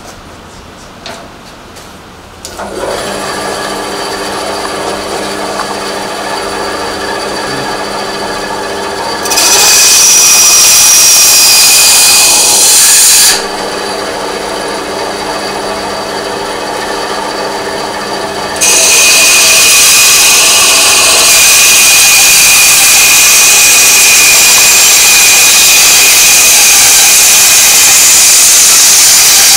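Electric saw cutting a curve into a handle. The motor starts a couple of seconds in, and the cut turns loud and harsh about ten seconds in. It eases back to the motor alone for about five seconds, then cuts loudly again through the rest.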